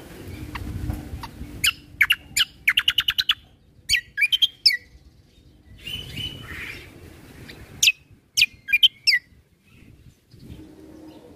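A kecial kombo (cucak kombo) singing in bursts of sharp, high chirps, each note sliding down. About two seconds in comes a fast rattling run of about a dozen notes, followed by shorter phrases. A low rumble sits under the first second.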